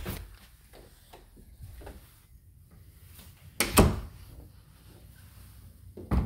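Interior bedroom door being pushed open by hand, with short knocks: one as it starts to swing, a loud one a little under four seconds in, and another near the end.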